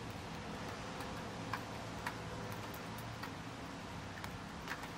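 Faint steady background hiss and low hum, with soft ticks scattered at uneven intervals, a few of them a little louder.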